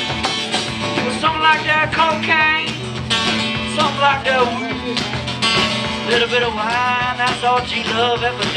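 Live acoustic guitar and drum kit playing together, steady drum and cymbal hits under strummed guitar, with a wavering melodic line bending over them from about a second in.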